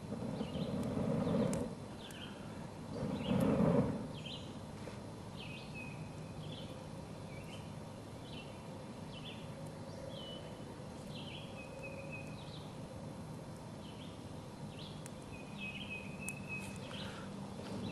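Small birds chirping repeatedly in the background, short high notes with a few longer held ones. Two short rushes of air about a second in and around three to four seconds in are the loudest sounds, with a few faint clicks from the small kindling fire.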